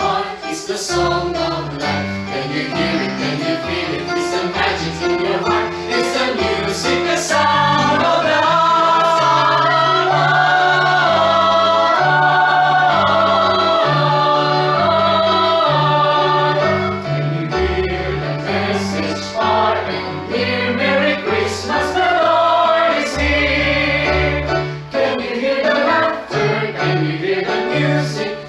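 A chorale singing in parts, with held chords over low notes that step along steadily beneath.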